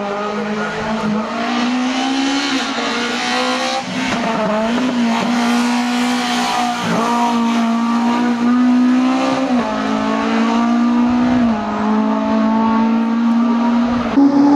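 Renault Clio RS III hill-climb race car's 2.0-litre four-cylinder engine running hard at high revs up the climb. Its note rises steadily and dips sharply at gear changes, several times over.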